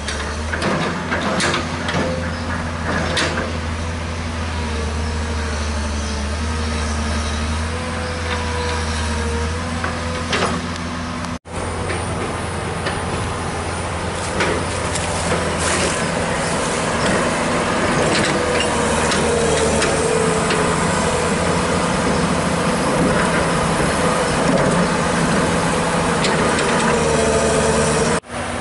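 Komatsu PC200 excavator's six-cylinder diesel engine running under working load, its pitch shifting slightly as the arm moves, with scattered knocks from the machine. The sound drops out briefly twice.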